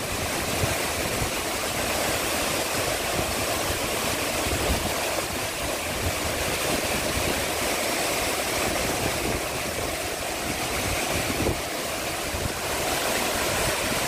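Large waterfall's steady rush of falling water and spray, with an uneven low rumble underneath.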